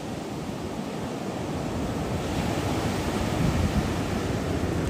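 Ocean surf breaking and washing up the beach, with wind rumbling on the microphone. The surf swells a little louder about two seconds in.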